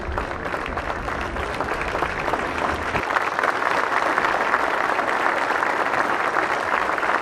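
Crowd applauding steadily, growing a little stronger about three seconds in.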